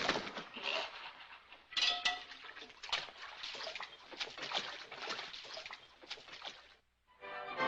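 Dubbed-in Disney cartoon sound effects over slapstick pie-throwing: a string of sharp hits and pops, with a short pitched cry about two seconds in, stopping suddenly a little before the closing music.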